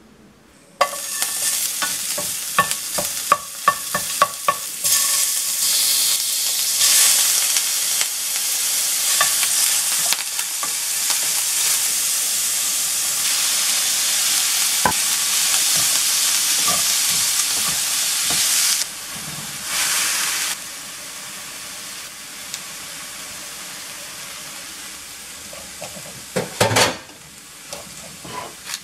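Chopped napa cabbage, mushrooms and shrimp sizzling as they are stir-fried in a stainless steel frying pan, with a utensil clicking and scraping against the pan. The sizzle is loud at first and drops off sharply a little past halfway. A few knocks against the pan come near the end.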